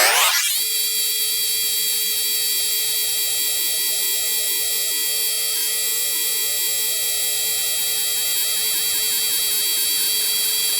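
Tool post grinder running on the lathe with a steady, high-pitched whine. Its pitch rises in the first half-second, then holds steady as the wheel spins at speed.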